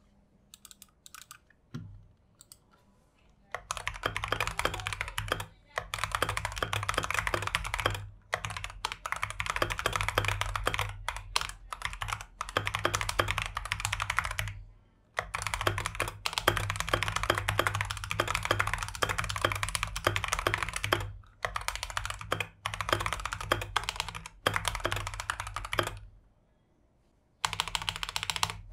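Fast typing on a Skyloong GK75 gasket-mounted keyboard with pre-lubed red linear optical switches and PBT keycaps. A few scattered keystrokes come first. From about three and a half seconds in come dense runs of keystrokes, each a couple of seconds long, broken by short pauses.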